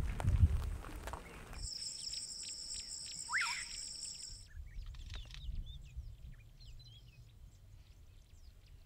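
Savanna ambience: an insect's steady, high trill runs for about three seconds, with a short rising bird chirp in the middle of it. Faint scattered bird calls follow. A low rumble fades out in the first second or so.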